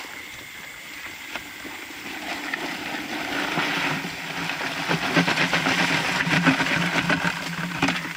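Live rice-field crabs scrabbling and clattering against the inside of a plastic bucket as they are tipped out into a mesh net bag: a dense patter of small clicks that builds up about two seconds in and is busiest near the end.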